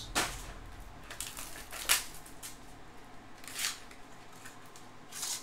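Hands handling and opening a cardboard trading-card box: four short scrapes and crackles of card and packaging, the sharpest about two seconds in.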